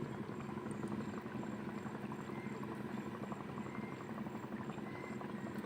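Steady low engine drone, even in level throughout.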